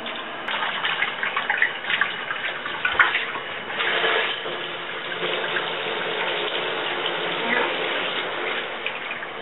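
Bathtub shower running, a steady hiss of spraying water with irregular splashes and spatters as it falls on a person standing under it.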